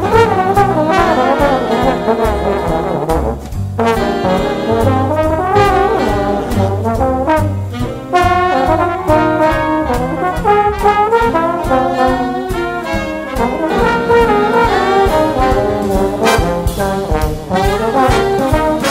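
Slide trombone playing a quick, moving jazz solo line over a backing track with bass and drums. The phrases break briefly for breaths about four and eight seconds in.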